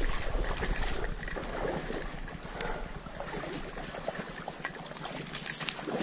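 Dry corn stalks rustling and brushing past with small snaps as someone pushes through a flooded cornfield, water sloshing underfoot.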